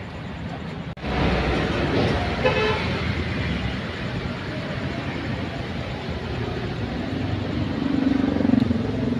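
Road traffic running steadily, with a vehicle horn sounding briefly about two and a half seconds in and a longer, lower horn near the end.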